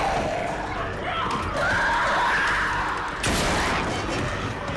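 Horror film action sound mix: a wavering cry over a dense, noisy din, with a sudden loud impact about three seconds in.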